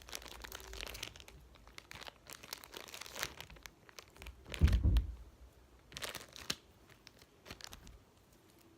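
Plastic baggie crinkling and rustling as it is opened and handled, with one loud dull thump a little before halfway through.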